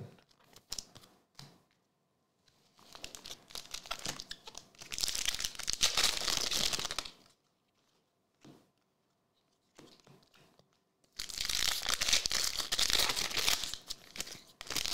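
Foil trading-card packs of Select AFL Legacy being torn open and their wrappers crinkled, in two bouts of a few seconds each, with small rustles and clicks of card handling between.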